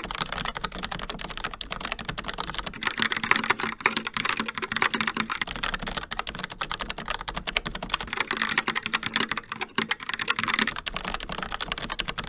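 Fast continuous typing on tactile brown-switch mechanical keyboards, a dense patter of key clicks. The sound switches every few seconds between a Logitech MX Mechanical with Kailh Brown switches and a Logitech Pop Keys with Logitech TTC Brown switches, changing character at each cut.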